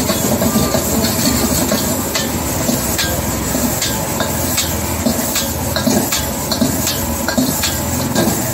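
Rice being stir-fried in a steel wok over a high gas burner: a steady rush of flame and sizzling, with the ladle striking and scraping the wok at irregular intervals.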